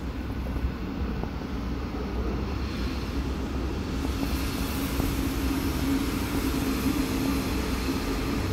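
Regional train moving through the station: a steady low rumble, with a humming note and a hiss coming in about halfway through and growing a little louder.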